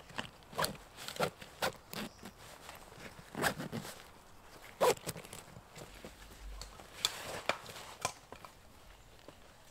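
A backpack being fastened: plastic buckles click and nylon straps and fabric rustle, in a run of short sharp clicks. This is followed by a longer rustle, then footsteps on the forest floor near the end.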